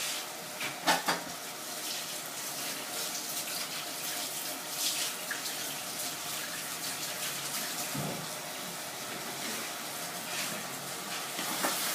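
Meat for a stew sizzling steadily in a hot pan on the stove, with a couple of knocks from the pots about a second in.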